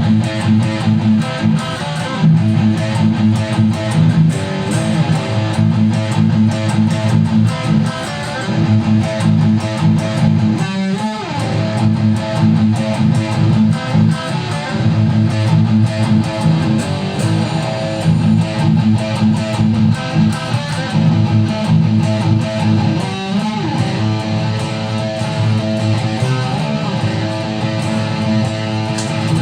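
Guitar playing chords in a steady strumming rhythm.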